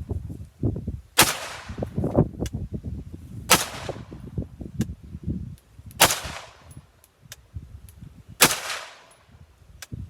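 Four single rifle shots from an HMT-15 AR-15 firing 62-grain 5.56 mm green-tip rounds, spaced about two and a half seconds apart in slow aimed fire, each with a short ringing tail.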